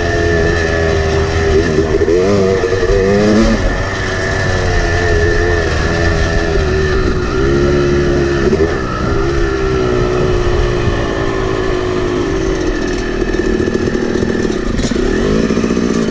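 Yamaha YZ250 two-stroke dirt bike engine ridden hard, its pitch rising and falling over and over as the throttle is opened and closed through the jump line, heard from on the bike.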